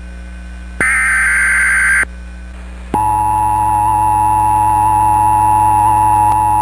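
Emergency Alert System SAME data burst, a harsh warbling digital tone lasting just over a second that ends about 2 s in. After a short gap, the steady two-tone EAS attention signal starts about 3 s in and holds.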